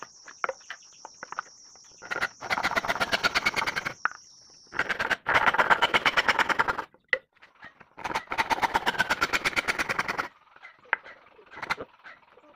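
Handsaw ripping a teak board lengthwise in quick back-and-forth strokes, in three runs of a few seconds each with short pauses between. A few light taps come before the sawing starts.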